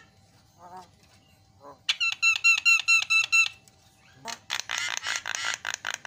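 Javan myna calling: two short calls, then a fast run of repeated clear notes lasting about a second and a half, then a harsher fast series of notes near the end.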